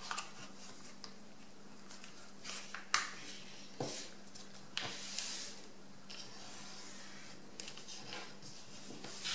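A sheet of A4 paper being folded and creased by hand: faint rubbing as fingers smooth the folds flat, broken by a few brief crisp paper rustles.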